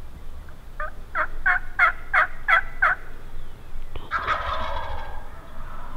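Wild turkeys calling: a run of about seven evenly spaced yelps, about three a second, then a gobbler's rattling gobble about four seconds in.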